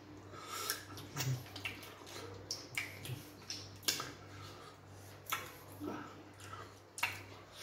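Close-up eating sounds: wet lip smacks and chewing as fufu with okro soup is eaten by hand, a string of short, sharp smacks at irregular intervals.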